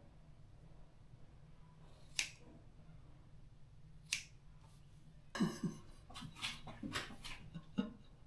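Scissors snipping through wet hair: two sharp snips about two seconds apart, then from about five seconds in a busier run of clicks mixed with short bursts of laughter.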